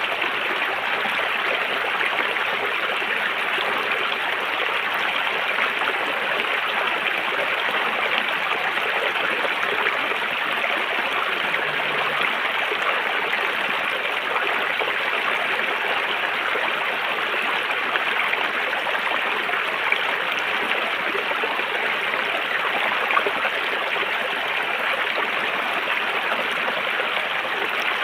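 River water flowing in a steady rush, with continuous splashing and gurgling.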